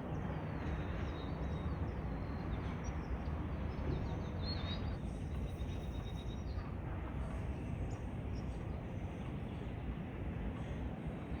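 Steady outdoor background noise, strongest in the low end, with a few faint bird chirps about three to five seconds in.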